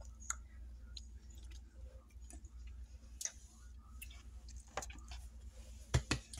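Faint, scattered clicks and scrapes of a knife in a jar of spread, with a couple of louder knocks near the end.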